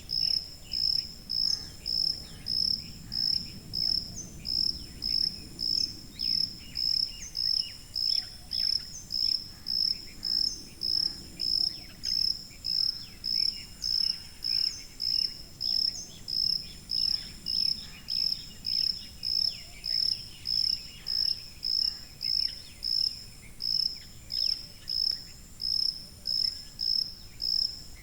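A cricket chirping steadily: short high-pitched chirps repeated evenly, about three every two seconds.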